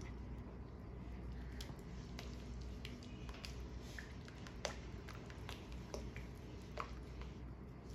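Silicone spatula stirring thick egg-drop soup in a nonstick wok: soft sloshing with short, irregular clicks and taps against the pan, over a faint steady hum.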